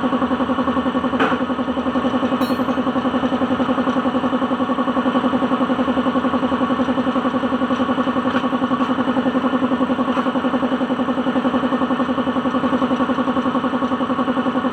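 An engine idling steadily with an even, fast pulse, and a brief click about a second in.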